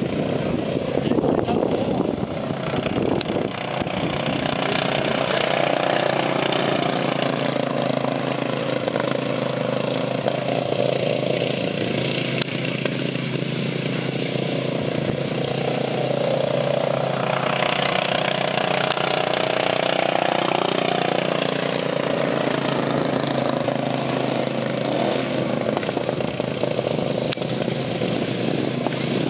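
Racing lawn mower engines running hard as the mowers lap a dirt track, their pitch rising and falling as they rev and pass.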